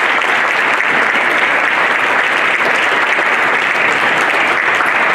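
Audience applauding steadily, a dense sustained clapping from a large crowd at the close of a lecture.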